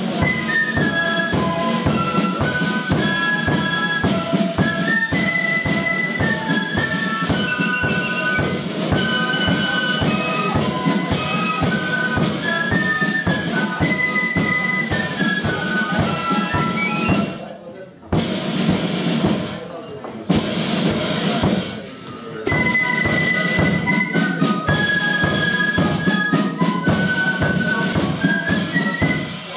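Flute band playing: massed flutes carry a stepped melody over rattling side drums and a bass drum, with a couple of brief breaks about two-thirds of the way through.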